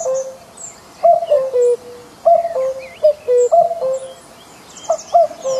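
Common cuckoo calling its two-note 'cuckoo', the second note lower, repeated about once a second. Faint chirps of small songbirds sound behind it.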